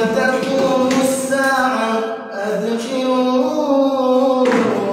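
Quran recitation (tilawa): a single reciter's voice chanting in long, drawn-out melodic phrases, with a brief pause for breath about halfway through.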